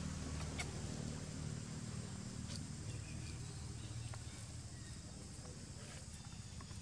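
A low, steady motor hum that slowly fades, with a few faint sharp clicks and light rustles in dry leaf litter.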